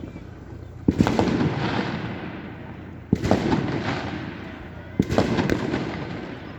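Fireworks going off: three loud bangs about two seconds apart, each followed by a dense crackle that fades away.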